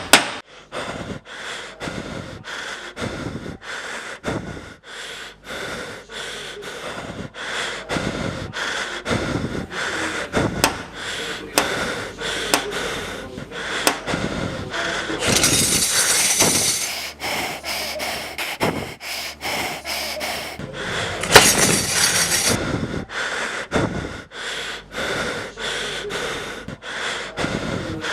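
Foley breathing and wheezing sounds: a long run of short breathy puffs, about one a second, with two longer hissing breaths, one about halfway through and one a little later.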